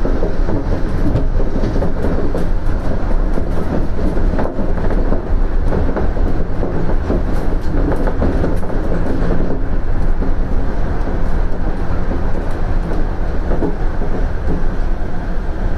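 Shonan Monorail Series 5000 suspended monorail car running between stations, heard from inside the cabin: a loud, steady running noise from its rubber tyres in the overhead track beam, with scattered faint clicks.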